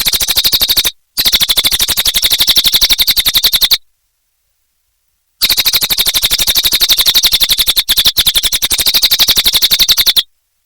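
Cililin songbird singing long, fast trills of rapidly repeated sharp high notes. It comes in three bursts of about one, two and a half, and five seconds, each stopping abruptly into dead silence.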